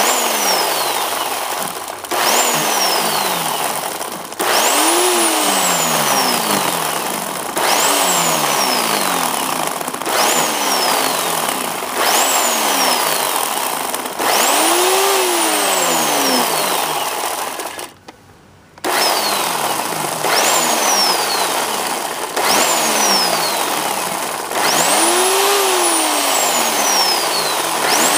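Bauer 16-inch chainsaw revved in repeated short bursts, about one every two seconds. Each burst rises quickly in pitch and winds down, and it stops for a moment about two thirds of the way through.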